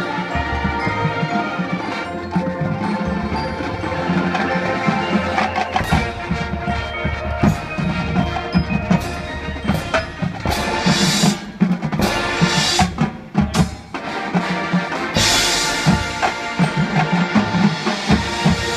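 Full marching band playing: brass and woodwinds sustain chords over a pulsing drum beat, with mallet percussion and bells from the front ensemble. Loud accents hit around the middle and again near the end as the show reaches its close.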